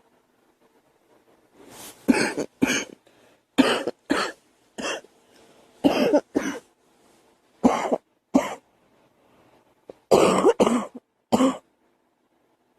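A girl coughing: about a dozen sharp coughs, mostly in pairs, separated by short pauses and faint breaths in.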